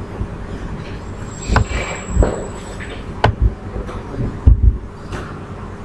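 A computer mouse clicking a few times, about a second and a half in and again past three seconds, with low dull thumps in between over a steady low background rumble.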